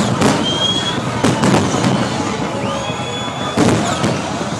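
Fireworks display: loud shell bursts just after the start, about a second in and again near the end, over continuous crackling, with high whistles that rise and then hold.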